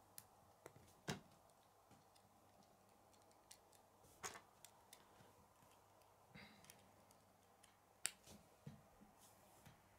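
Near silence with faint, scattered clicks of K'nex plastic rods, connectors and gears being handled and snapped together, three of them sharper than the rest.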